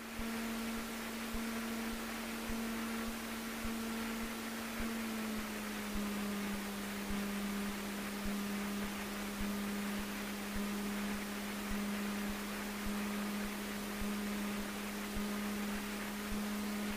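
Steady hum of a Cessna 150 taxiing at about 1,000 RPM, its pitch dropping slightly about five seconds in.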